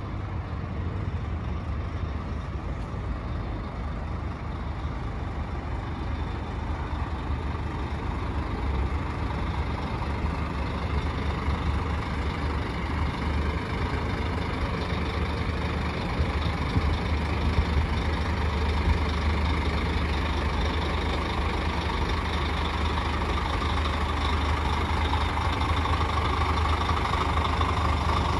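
Scania K440 coach's rear-mounted 13-litre six-cylinder diesel engine idling with a steady low hum, getting gradually louder.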